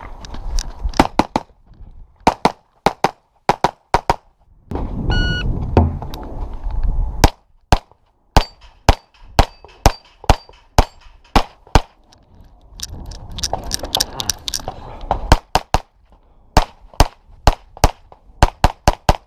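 Handgun fired rapidly during a practical pistol stage, shots coming mostly in quick pairs with short pauses between strings. Wind rumbles on the microphone in stretches, and a short ringing tone sounds about five seconds in.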